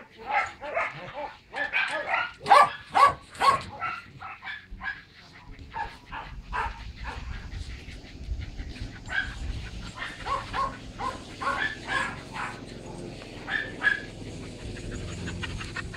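Shelter dogs barking in their kennels, a rapid run of loud barks in the first few seconds, then fainter scattered barks. A low rumble runs under the second half.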